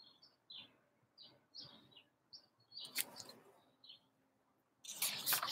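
A small bird chirping over and over, short high notes every third to half second. Near the end comes a louder rustle of paper pages as the book is handled.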